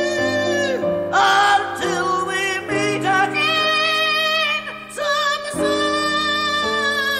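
A song: a singing voice holding long notes with vibrato over a steady instrumental accompaniment.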